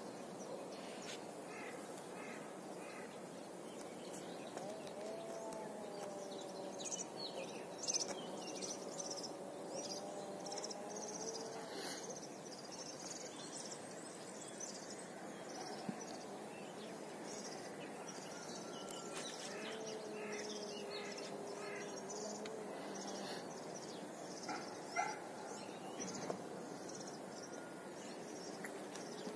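Birds chirping and calling over a steady background hum, with a few small clicks from bonsai wire being handled.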